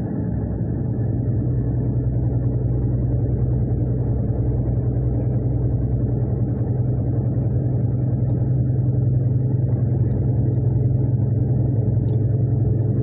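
Steady low rumble of a car's engine and tyres heard from inside the cabin while driving along a road, growing slightly louder about a second in.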